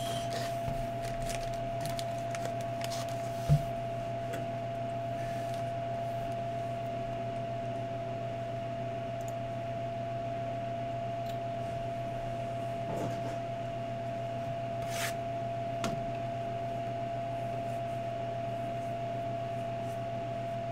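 A steady electrical hum with a constant high tone runs under faint rustles and taps of card boxes being handled, with one sharp knock about three and a half seconds in.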